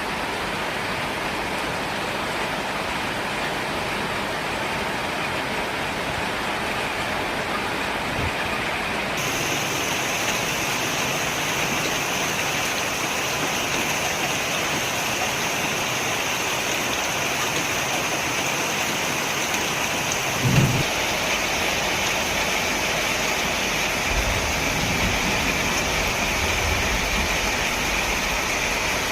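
Light rain still falling after a shower, a steady patter of drizzle. About twenty seconds in there is a brief thump, and a low rumble comes in near the end.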